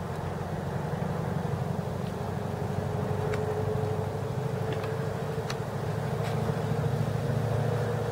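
A motor vehicle engine running steadily: a low rumble with a held hum that rises slightly in pitch, and a few faint ticks.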